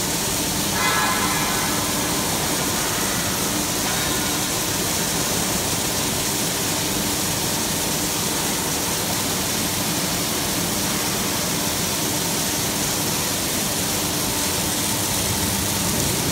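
Steady hiss and crackle of a robotic arc welder working, over factory machinery hum, with a brief whistle-like tone about a second in.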